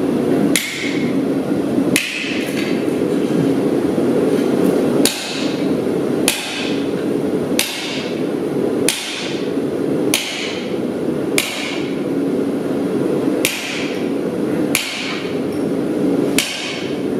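A sledgehammer strikes glowing hot steel held on an anvil, about a dozen blows a little over a second apart, each with a short metallic ring. A steady low rushing noise runs underneath.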